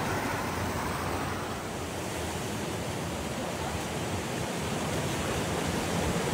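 Creek water rushing steadily over rocks, a constant hiss-like flow.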